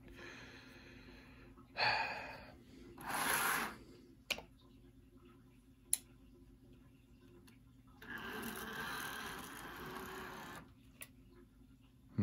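Two breathy exhales about two and three seconds in, a few light clicks, and a steady faint whir lasting about two and a half seconds in the second half, around a HO-scale model locomotive test that stalls on a short circuit.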